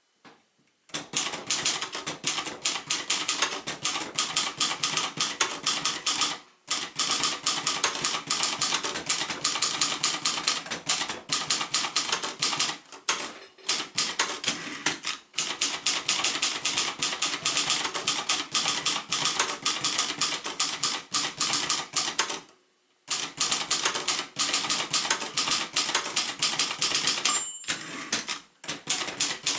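1972 Royal Mercury ultraportable manual typewriter being typed on in fast runs of keystrokes, broken by a few short pauses. A short bell rings near the end. The escapement is working freely after being cleared of a jam.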